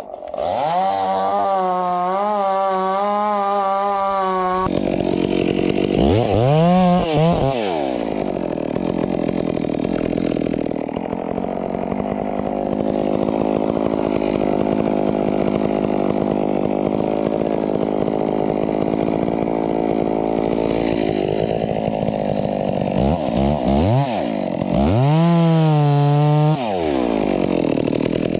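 Two-stroke chainsaw running hard and cutting into a tree trunk. It revs up and falls back sharply a few times, with a long steady stretch under load in between.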